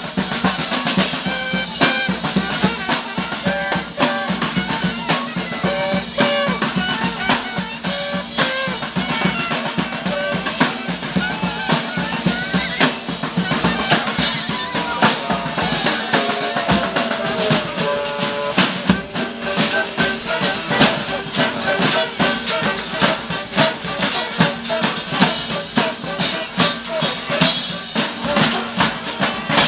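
Street band playing: a drum kit with snare and bass drum drives a steady beat under sustained melodic instruments, one of which slides down in pitch about halfway through.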